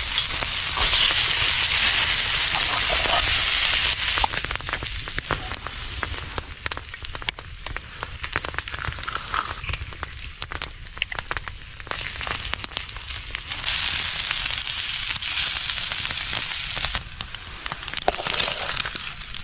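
Frozen corned beef hash sizzling in a small skillet. A loud, steady hiss for the first few seconds settles into a quieter crackle and spitting pops, and the hiss swells again for a few seconds later on.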